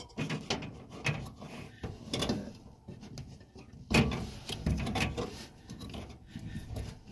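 Hands working the drive belt onto the motor and idler pulleys inside a Samsung dryer cabinet: irregular knocking, clicking and rubbing of belt, pulley and sheet-metal parts, with one louder knock about four seconds in. The motor is not running.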